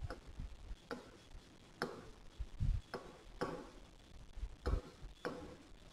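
Pen tapping and scratching on an interactive whiteboard screen while handwriting: faint, irregular taps, roughly one a second, a few with a soft low thud.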